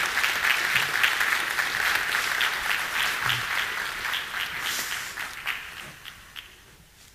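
Audience applauding: dense clapping that thins out and dies away over the last two seconds.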